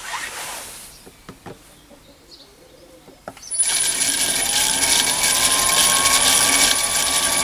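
A few light clicks, then about three and a half seconds in the Chinese mini lathe starts up on reverse jog. Its VFD-driven three-phase motor and the spindle's belt and gear drive run with steady gear noise, a whine that rises in pitch as the drive ramps up and then holds, and a thin high-pitched whine, settling at a jog speed of 95 RPM.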